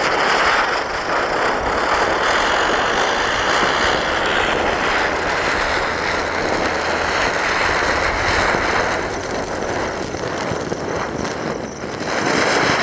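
Ground spinner firework (chakri) whirling on the ground and spraying sparks, with a loud steady hiss that dips slightly, swells again near the end, then begins to die away.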